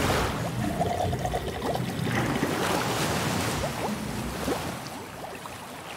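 Logo sound effects: a whoosh, then underwater bubbling and trickling with many short rising bubble pops, fading out near the end.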